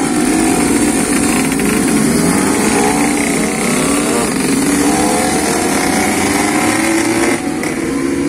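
Several two-stroke underbone motorcycles, Suzuki RG Sports, revving as they ride off, with several engine notes overlapping and rising and falling. The sound drops a little near the end.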